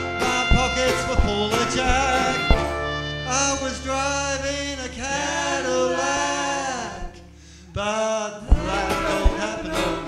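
Live acoustic band with double bass, acoustic guitar and clarinet playing, then several voices singing long held notes in harmony with vibrato. The music breaks off briefly about seven seconds in and the band starts up again with plucked bass and strings.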